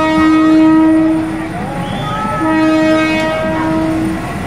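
Passenger train's horn sounding as the train creeps through a market crowded right up against the track, a warning to the people beside it. One long steady blast stops about a second and a half in, and a second blast sounds about a second later and lasts roughly a second and a half.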